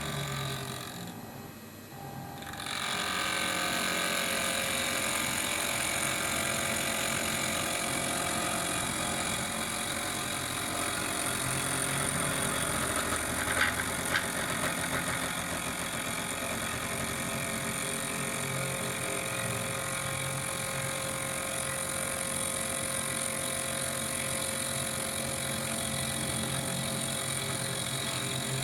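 CNC machine running while machining cams: a steady mechanical noise with many held whining tones, quieter for the first couple of seconds, with a couple of short sharp clicks about halfway through.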